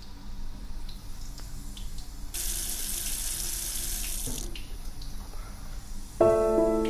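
Water running from a bathroom sink tap for about two seconds, turned on and then off. Piano music starts just before the end and is the loudest sound.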